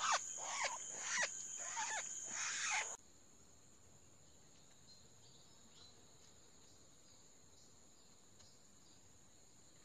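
A crake calling: a rapid series of loud notes, each falling in pitch, about three a second, cut off abruptly about three seconds in. After that only a faint steady insect buzz remains.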